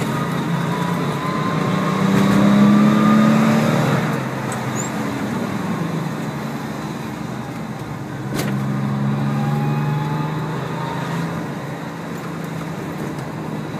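Subaru EZ30 3.0-litre flat-six engine in a VW Kombi, heard from inside the cab while driving. The engine note rises as it accelerates, loudest about two to four seconds in, then eases off and picks up again about eight seconds in.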